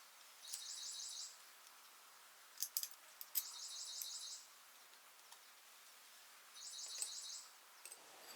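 A bird singing three short, rapid high-pitched trills about three seconds apart, with a few light clicks between them.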